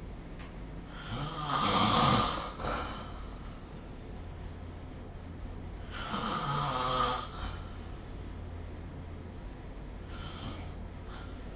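A person snoring in their sleep: two loud snores about four and a half seconds apart, each lasting a second or two with a low buzzing rattle, and a much fainter one near the end.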